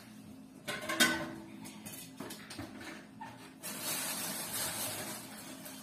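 Kitchen things being handled: a sharp knock about a second in as a basin is taken from a lower cabinet, a few lighter knocks, then thin plastic shopping bags crinkling for a second or two.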